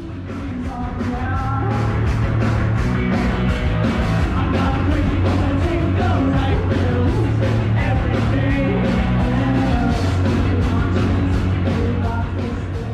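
Rock music with a singer over a steady drum beat, fading in over the first two seconds.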